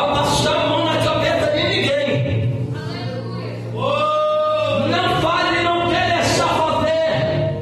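Gospel worship singing: voices singing a hymn over a steady low accompanying note.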